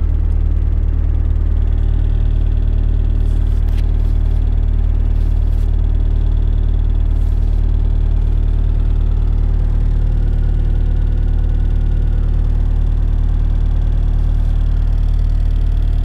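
Cat 262C skid steer's four-cylinder diesel engine running steadily, a low hum heard from inside the operator cab, with a light click about four seconds in.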